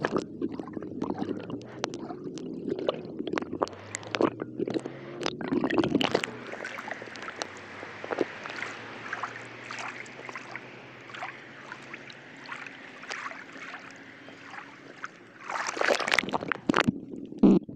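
Sea water sloshing and gurgling around a camera at and under the surface. The first few seconds are muffled underwater gurgling with many small clicks. Then comes a steadier hiss of water, and a louder splash near the end as the camera goes back under.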